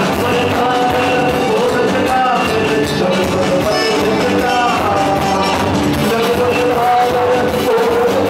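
Male singer performing chutney soca live into a handheld microphone, holding notes that bend up and down, over a backing band with keyboard.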